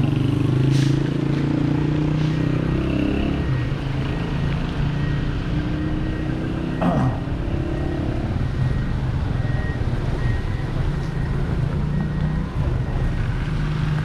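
Street traffic: a motorcycle tricycle's small engine runs close by in the first few seconds, then the steady hum of motorbikes and cars goes on, with a brief falling whine about seven seconds in.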